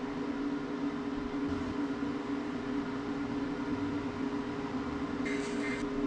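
EcoFlow Glacier 12-volt fridge-freezer's compressor and cooling fans running hard in ice-making mode, a steady hum with two low tones.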